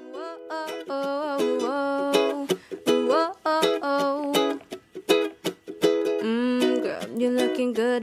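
Music: a woman singing a slow melody in held notes with slides between them, over a plucked acoustic string instrument.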